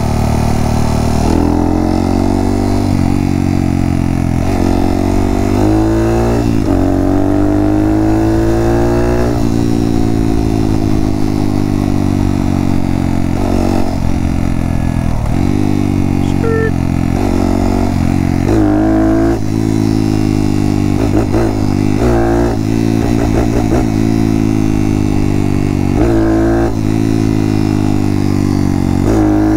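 Honda Monkey's single-cylinder engine, bored out to 181cc with a Kitaco kit, running under way as the bike is ridden. The revs climb and drop several times with throttle and gear changes, with one long easing-off in the middle.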